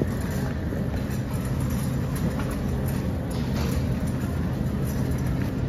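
Shopping cart wheels rolling over a hard store floor, a steady low rumble.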